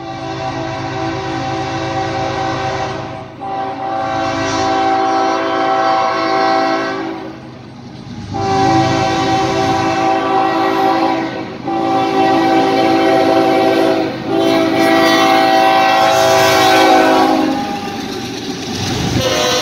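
Diesel freight locomotive's multi-chime air horn sounding a string of long blasts for a grade crossing, about five with short breaks, growing louder as the train nears. Near the end the horn stops and the locomotive's engine and wheels rumble and clatter past.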